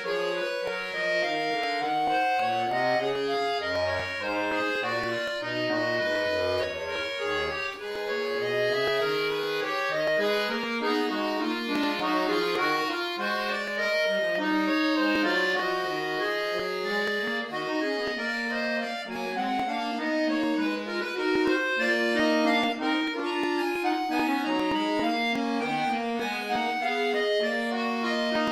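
Concert bayan, a chromatic button accordion, played solo: several melodic lines move together over a bass line that steps down low during the first several seconds.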